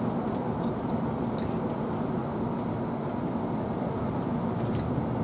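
Steady low rumbling background noise with a faint high-pitched whine and a couple of soft clicks.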